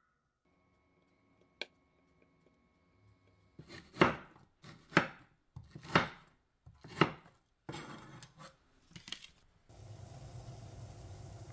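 A knife chopping green onion on a wooden cutting board: four firm chops about a second apart, then a few lighter, quicker cuts. A steady hiss starts near the end.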